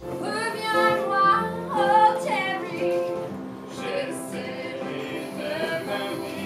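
A woman singing a song, accompanying herself on a strummed acoustic guitar.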